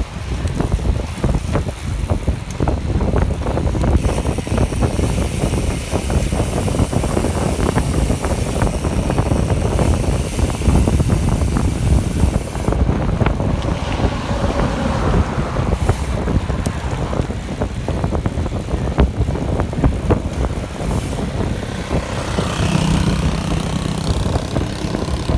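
Wind buffeting the microphone of a camera on a moving bicycle, a loud, rough, steady rumble with small knocks throughout. Near the end a low steady hum joins in.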